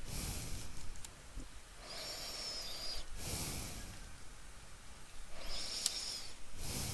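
A person breathing slowly and heavily through the nose close to the microphone, several breaths in a row, some with a thin wavering whistle.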